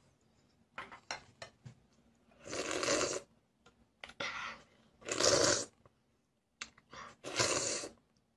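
A child slurping porridge straight from the bowl: three long slurps about two seconds apart, each led by a few short mouth clicks.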